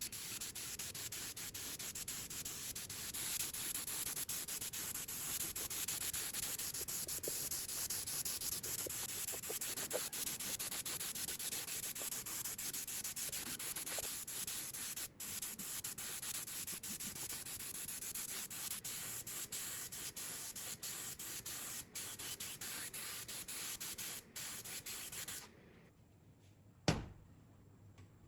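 Continuous hand sanding: abrasive paper rubbed steadily over a part, a dense rasping scrape that breaks off for an instant a few times and stops a couple of seconds before the end. It is followed by a single sharp knock near the end.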